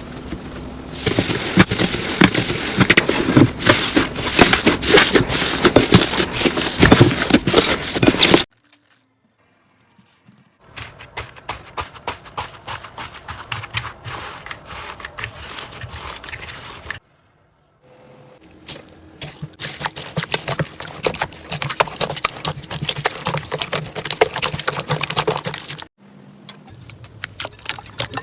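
Crunchy slime being squeezed and worked by hand, giving dense runs of crackles and pops, in three stretches broken by two short silences.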